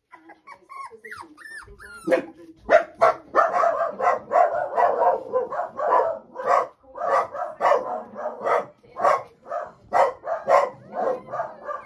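Lancashire Heeler puppies whimpering with thin, wavering whines, then, from about two seconds in, yapping over and over at about two sharp barks a second.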